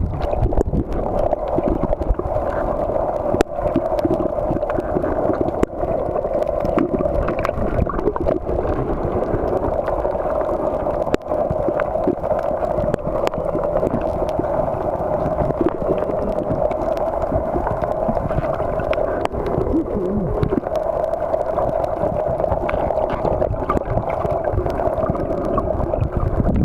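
Muffled underwater sound picked up by a camera held below the surface: a steady hum with scattered clicks and crackles throughout.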